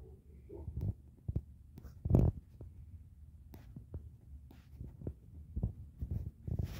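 Irregular low thumps and rumbling on a phone's microphone, with a louder thump about two seconds in.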